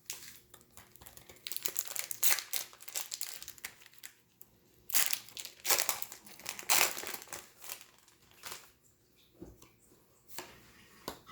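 Foil wrapper of a Magic: The Gathering promo pack being torn open and crinkled by hand, in two bouts of rustling, then a few lighter crackles as the cards come out.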